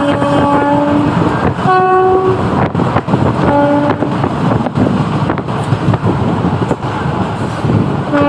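Indian Railways train horn honking in several blasts over the steady rumble and clatter of a running train. A long blast comes first, a higher-pitched short one about two seconds in, another short one a little later, and a brief one right at the end.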